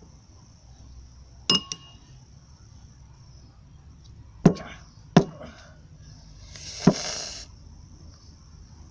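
Sharp metallic clinks from a small metal bowl being knocked on a wooden table: one about a second and a half in, two more close together around four and a half to five seconds, then a brief scrape and knock near the end.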